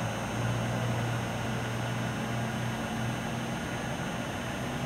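Road traffic noise with a steady low engine drone.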